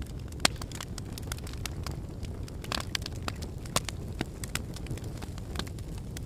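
Fire crackling: irregular sharp pops and snaps over a steady low rumble, with the loudest pops about half a second in and near four seconds in.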